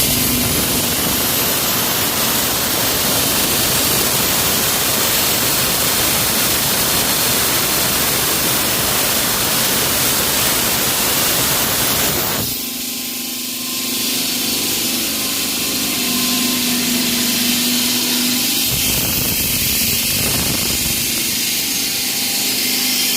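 Loud, steady noise of power tools or construction machinery running. About halfway through, the deeper part of the noise stops and a high hiss carries on.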